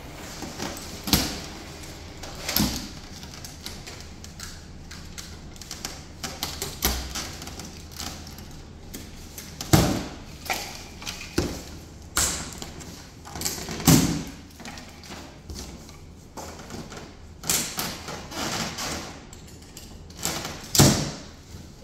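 Packing tape being cut and torn off a large cardboard shipping carton, with plastic wrap and straps being handled, heard as a series of short, sharp rips and scrapes at irregular intervals.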